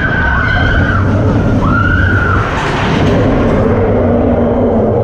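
Ride vehicle running in the dark: a loud, steady rumble with high squealing tones that glide up and down, the clearest a short arching squeal about two seconds in.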